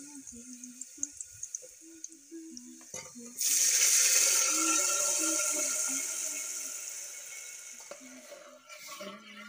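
Onions and spices crackling in hot oil in an aluminium pressure cooker. About three and a half seconds in, a sudden loud sizzle bursts out as cooked masoor dal is poured onto the hot oil (the tempering of the dal), then slowly dies away over the next few seconds.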